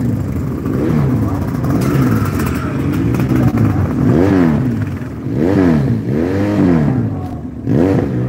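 Sidecar motocross outfits' engines revving as they pass at low speed. The revs rise and fall several times, about once a second.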